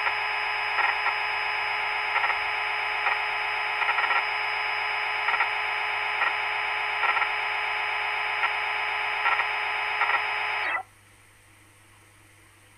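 Synthetic machining sound effect of a CNC milling simulator: a steady whine made of many layered tones, with brief louder peaks about once a second. It cuts off abruptly about eleven seconds in as the simulated machine goes into a tool change, leaving only a faint hum.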